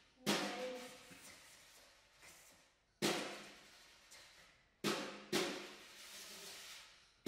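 Four sharp percussion strikes, each ringing out and fading slowly in a reverberant hall: one just after the start, one about three seconds in, and two in quick succession around five seconds.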